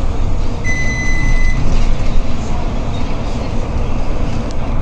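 Steady low rumble of a moving articulated city bus heard from inside the cabin: engine and road noise. A single high electronic beep, about a second long, sounds shortly after the start.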